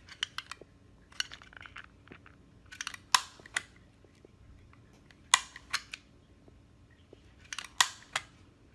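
Hertzko self-cleaning slicker brush's push-button mechanism clicking as its wire bristles are retracted and extended: repeated sharp plastic clicks in small groups of two or three, about five groups.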